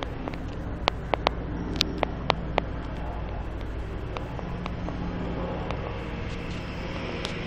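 A helicopter flying overhead, a steady low drone, with several sharp cracks of gunfire between about one and three seconds in.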